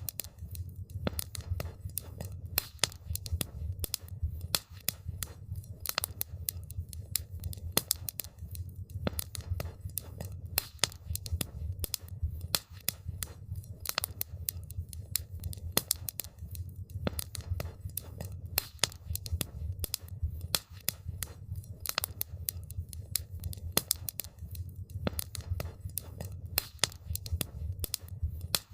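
Wood fire crackling with dense, irregular sharp pops and snaps over a low steady rumble of burning.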